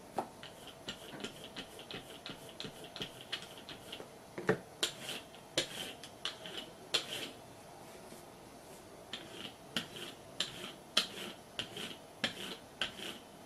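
Rubber brayer roller being inked and rolled over card and paper: a run of short, irregular clicks and ticks, with a brief lull about halfway through.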